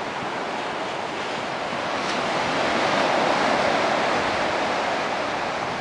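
Rough storm surf breaking and washing over shoreline rocks, a steady rush that swells to its loudest around the middle and then eases.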